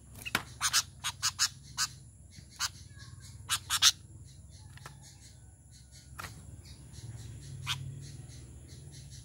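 Caged sooty-headed bulbul (kutilang) giving short, sharp call notes: a quick run of about eight in the first four seconds, then two single notes later on.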